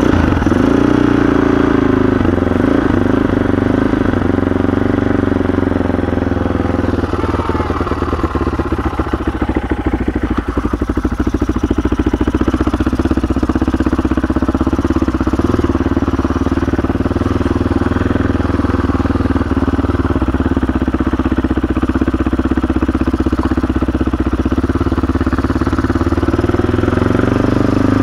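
CCM 604e supermoto's single-cylinder four-stroke engine running steadily while the bike is ridden at low speed. For a few seconds about a quarter of the way in, the separate firing pulses come through more plainly.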